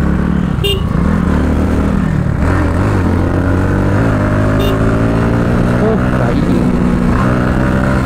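Bajaj Pulsar NS200 single-cylinder motorcycle engine under way, its pitch rising as it accelerates, dropping at a gear change about four seconds in, then climbing again, with wind rush.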